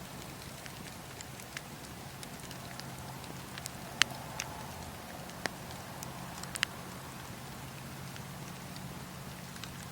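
Wood fire in a fireplace crackling: scattered sharp pops, the loudest about four seconds in, with two more a little later, over a steady low background.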